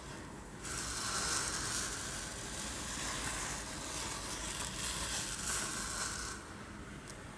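Uncooked rice rushing and rattling in a container, shaken or rolled to imitate sea waves washing on a shore. One long hissing swell starts suddenly about half a second in and dies away about a second before the end.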